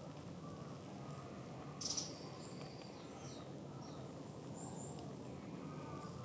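Steady low background noise with a few brief, high-pitched chirps, the sharpest and loudest about two seconds in.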